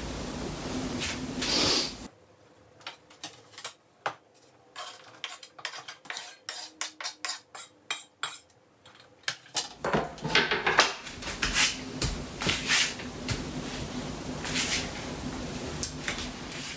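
Kitchen utensils clinking and scraping as chopped food is pushed off a wooden cutting board into a stainless-steel mixing bowl: a run of quick light clicks, then louder knocks and clatters against the bowl.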